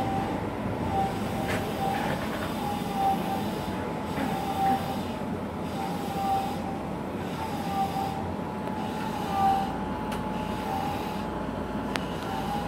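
Inside a stationary electric train: a steady hum with one high steady tone, and a short chirp that comes back roughly every second and a half.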